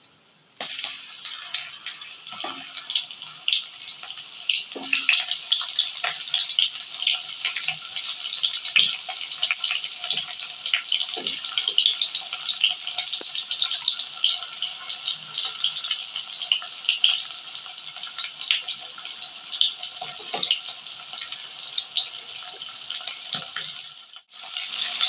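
Onion pieces sizzling and crackling in hot mustard oil with ajwain in a kadhai, starting abruptly under a second in as the first pieces drop into the oil, then a steady dense crackle.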